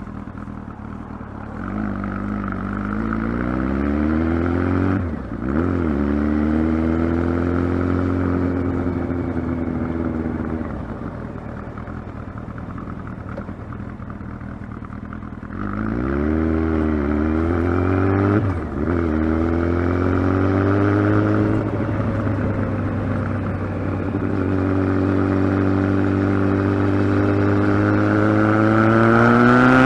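Kawasaki ZX-12R inline-four engine under way. Its pitch climbs, dips sharply for a moment about five seconds in, as on a gear change, then runs steady. It falls to a lower steady note for a few seconds, climbs again with a second brief dip just past halfway, and rises once more near the end.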